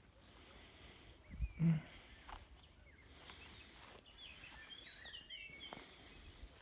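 Quiet outdoor garden ambience with a small bird giving a quick run of short chirps in the second half. A short low thump about a second and a half in is the loudest sound.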